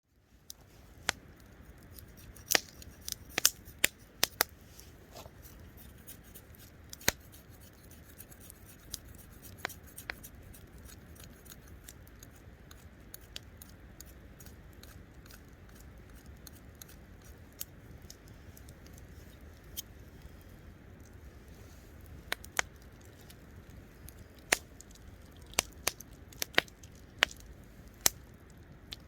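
Wood campfire crackling: irregular sharp pops and snaps over a steady low hiss, thickest in the first few seconds and again near the end.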